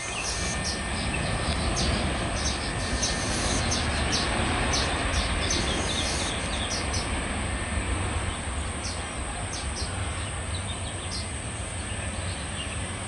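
Boeing 737 Classic's jet engines giving a steady roar as the airliner rolls along the runway, swelling slightly and then easing. Insects buzz and chirp steadily and high-pitched over it.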